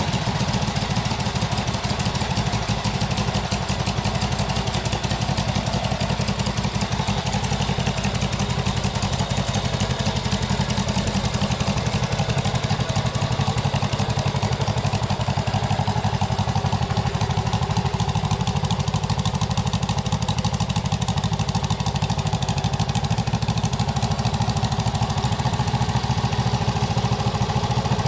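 1967 Honda CB77 Super Hawk's 305 cc parallel-twin engine idling steadily, freshly revived after years off the road and running very rich.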